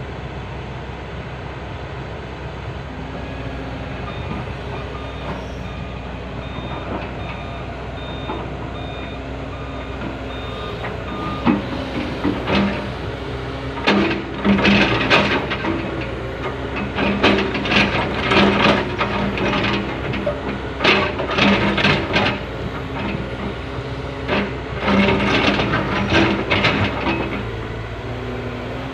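Komatsu excavator running with a steady engine hum and a faint intermittent beep. From a little before halfway, its bucket scrapes and knocks against rock in irregular loud bursts.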